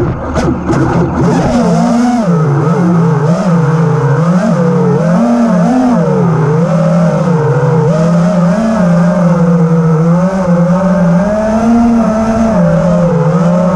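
FPV drone's electric motors and propellers whining loudly, the pitch rising and falling every second or so as the throttle changes, with a quick swoop down and back up near the start.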